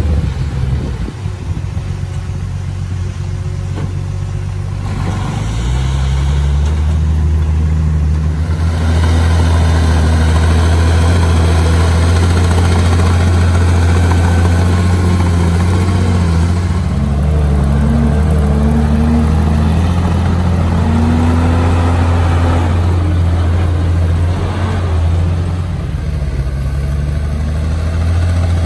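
Komatsu bulldozer's diesel engine running, rising in pitch about five seconds in and louder from about nine seconds. A higher wavering whine comes and goes in the middle.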